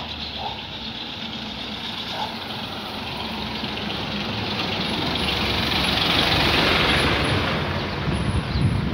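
A truck drives past on wet asphalt, its engine running and its tyres hissing. The sound swells to its loudest about six to seven seconds in, then eases off.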